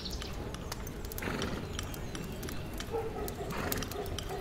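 Layered medieval soundscape in which a horse's hooves clip-clop among scattered sharp knocks and clicks, over a steady low background.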